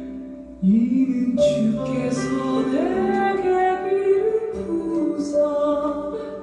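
Korean worship song: a singer over a sustained instrumental backing, with a short break about half a second in before the next sung phrase.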